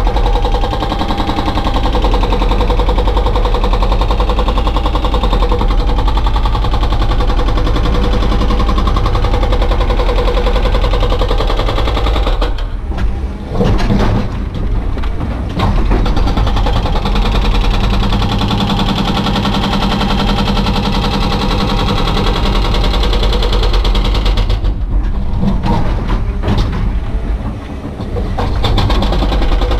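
Excavator-mounted hydraulic breaker hammering rapidly on concrete rubble over the excavator's running engine, heard from inside the cab. The hammering stops briefly twice and starts again.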